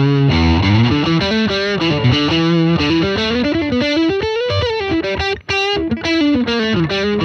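Electric guitar played through a Fender Tone Master Princeton Reverb combo amp: a single-note melodic line with sliding notes, broken by a brief gap about five and a half seconds in.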